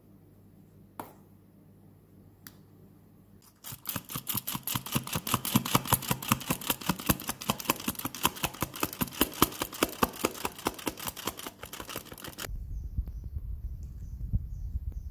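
Flour being sifted into a bowl of batter: the sifter clicks quickly and evenly, about seven times a second, for several seconds. A low rumble takes over near the end.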